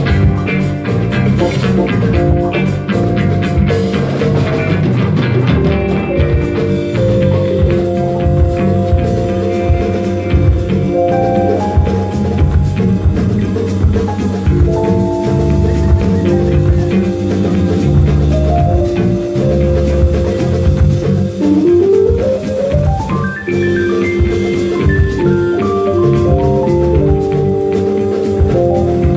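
Live band playing an instrumental groove: electric guitars, drum kit and hand drums under a lead line of held notes that slides upward about two-thirds of the way in.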